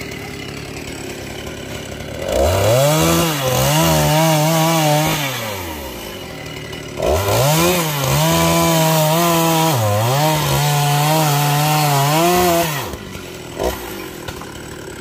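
A two-stroke chainsaw idling, then run at full throttle twice to cut into a felled coconut palm trunk. The first spell lasts about three seconds and the second about six, with a brief dip in pitch partway through. It drops back to idle between and after.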